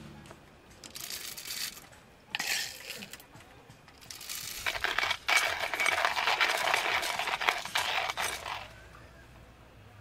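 Coffee beans rattle as they are spooned into a stainless steel hand coffee grinder, twice. Then the grinder is cranked, crunching the beans for about four seconds before stopping.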